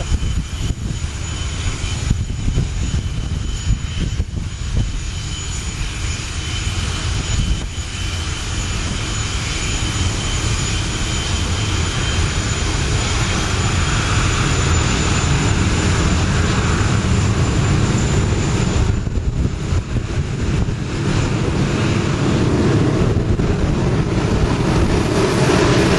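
English Electric Lightning's twin Rolls-Royce Avon turbojets running during warm-up: a steady, loud jet noise with a thin high whistle over it, growing gradually louder over the second half.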